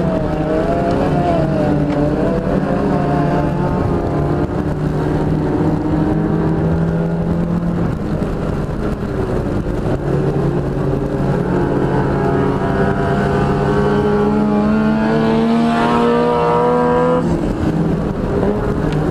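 Dodge Neon's four-cylinder engine under race load, heard from inside the car on a dirt oval. The revs waver for the first few seconds, climb steadily for several seconds, then drop sharply near the end as the throttle is lifted.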